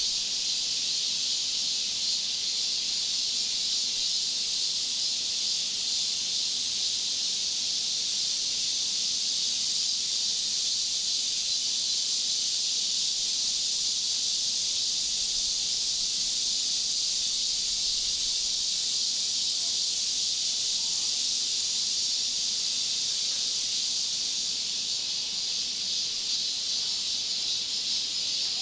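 A steady, high-pitched chorus of insects, even throughout, with a fast flickering pulse in its highest notes.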